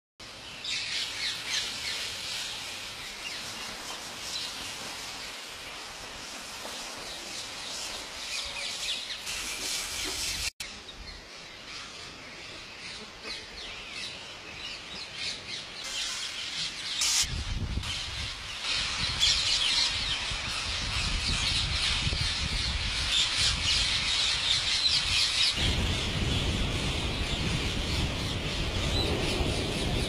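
A large flock of rose-ringed parakeets calling together, a dense mass of shrill chirps and squawks that grows louder in the second half.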